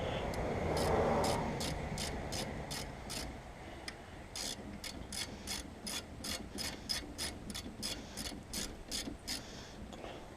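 Socket ratchet wrench clicking steadily, about three clicks a second, as a brake caliper bolt is turned.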